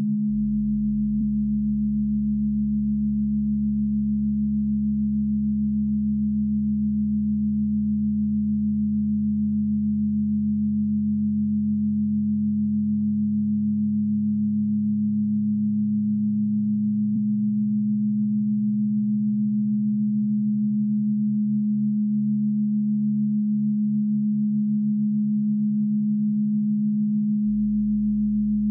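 Steady, low electronic drone of several pure tones sounding together, the kind of synthesized tone bed laid under hypnosis tracks. The deepest tones change about a second in and again near the end, and one middle tone pulses faintly through the second half.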